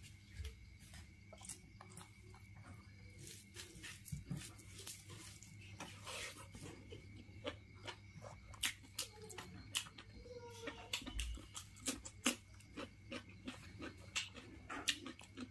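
Quiet eating sounds from rice and curry eaten by hand: scattered wet clicks of chewing and lip smacks, with fingers squishing and mixing the rice.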